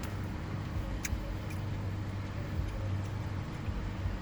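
Steady low rumble of motor vehicles and road traffic coming in through an open car window, with a single small click about a second in.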